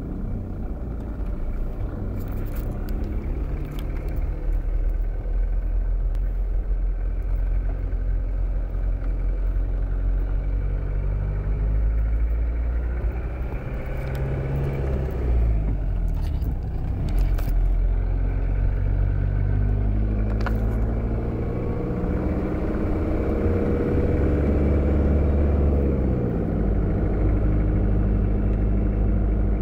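Cabin noise of a Volvo Laplander at highway speed: a steady low engine and drivetrain drone whose tones drift up and down in pitch now and then. Over it is some wind noise from an open sunroof and a headwind, with little noise from its Cooper Discoverer STT Pro tyres. A few faint clicks come through.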